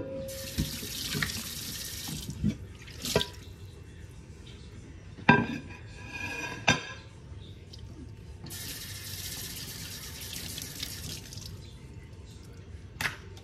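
Kitchen faucet running into a stainless steel sink in two short spells. In between, a bowl is knocked and set down, a few sharp clinks with a brief ring.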